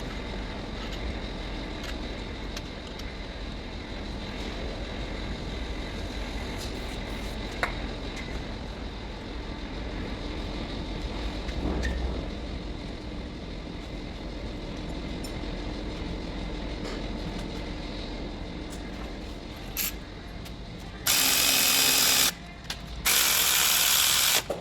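Hand tools at work on the mounting of a new alternator: scattered small clicks and knocks, then two loud bursts of a socket wrench ratcheting, each about a second long, near the end.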